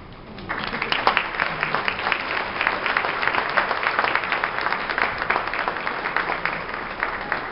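Audience applauding. The clapping starts about half a second in and goes on steadily, with single claps standing out among the many.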